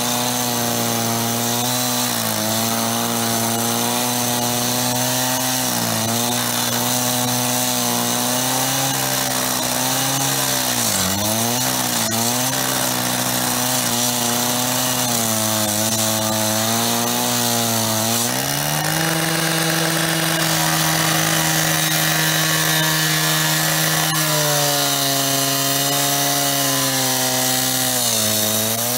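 Power saw running continuously and cutting, its motor pitch sagging again and again as it bites in under load, then running steadier and higher from about two-thirds of the way in.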